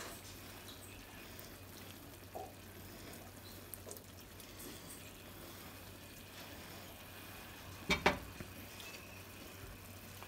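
Chicken thighs sizzling gently in a frying pan of simmering chicken broth and lime juice, with tongs moving the pieces. A sharp double knock of the tongs about eight seconds in.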